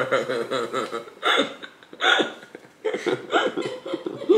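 A man laughing helplessly in short gasping, hiccup-like bursts, several of them about a second apart.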